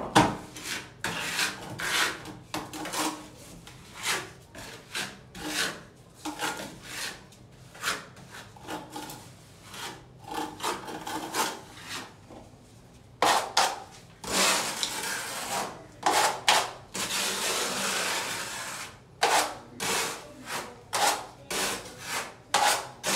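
A steel putty knife scrapes a gritty cement brown coat over tile and off a steel mud pan in repeated short strokes, with a longer stretch of continuous scraping about two-thirds of the way in.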